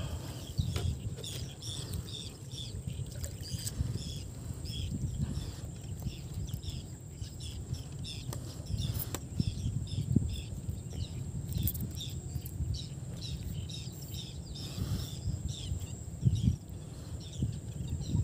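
Outdoor lake ambience: a low rumble of moving water, with short high bird chirps repeating two or three times a second throughout.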